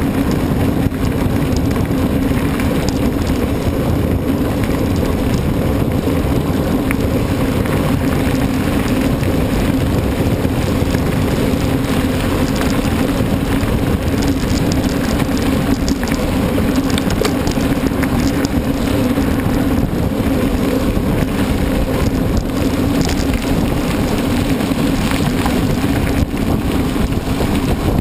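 Mountain bike ridden along the race course: a steady rush of wind on the microphone mixed with tyre and trail noise.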